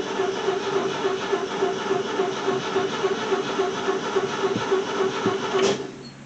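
Car's starter motor cranking the engine in a steady, pulsing rhythm without the engine catching: a car that won't start. The cranking cuts off suddenly with a click near the end, leaving a quiet low hum.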